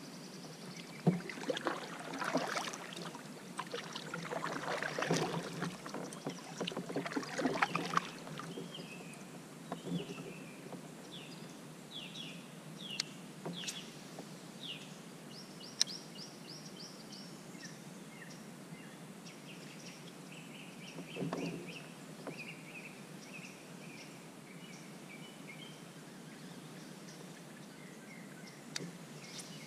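Knocks and rustling from gear being handled aboard a fishing kayak for the first several seconds. Then birds chirp in short runs of calls and trills, with an occasional sharp click and a brief knock.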